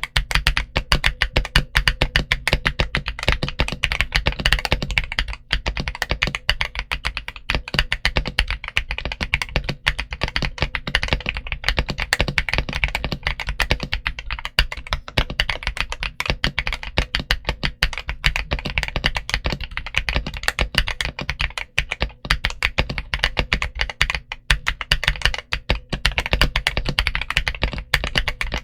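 Continuous fast typing on a GMK61 61-key mechanical keyboard fitted with MMD Honey tactile switches and XVX Retro 100 keycaps: a dense stream of key clacks and bottom-out taps.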